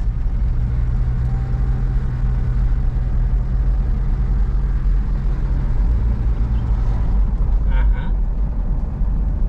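Car cabin noise while driving: a steady low rumble of engine and tyres on the road, with a low hum that fades out about six to seven seconds in.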